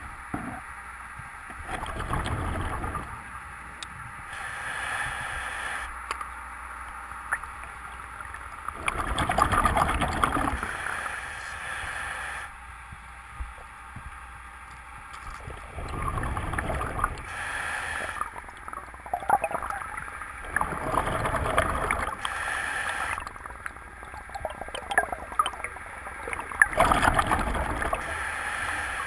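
Scuba diver breathing through a regulator: exhaled bubbles gurgle loudly in bursts every few seconds, with quieter stretches between them as the next breath is drawn.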